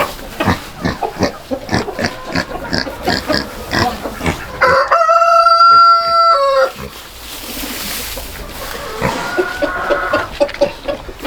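A rooster crows once about five seconds in, one long call held for about two seconds, the loudest sound here. Before it come rapid short clucking sounds, and a fainter call follows near the end.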